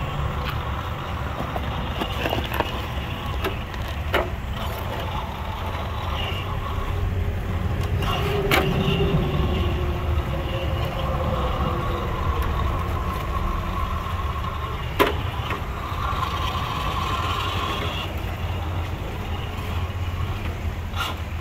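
Axial SCX10 II RC rock crawler's electric motor and gears whining, the pitch rising and falling with the throttle as it crawls, over a steady low rumble. A few sharp knocks cut in, the sharpest about fifteen seconds in.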